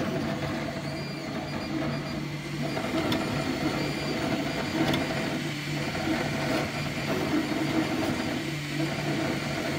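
JGAURORA metal-frame FDM 3D printer printing: its stepper motors hum in pitches that shift and break off every second or so as the print head moves, over the steady whir of its cooling fans.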